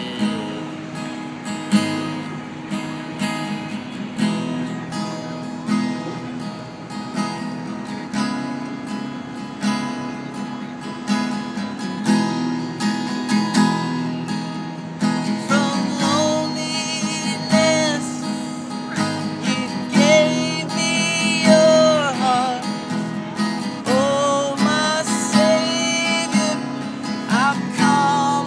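Takamine acoustic guitar strummed in a steady rhythm, with a man singing over it from about halfway through.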